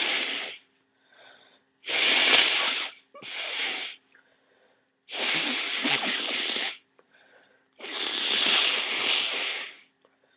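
A person blowing a congested nose hard in a series of long, noisy blasts: one trailing off at the start, then four more of about one to two seconds each, the second and third close together. Faint breaths come in the pauses between them.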